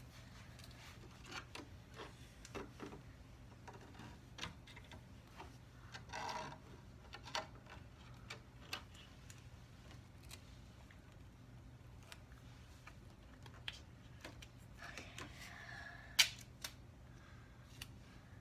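Faint scattered clicks, crinkles and rustles of plastic mesh screen and duct tape being handled and pressed onto a cabinet, with one sharper click near the end.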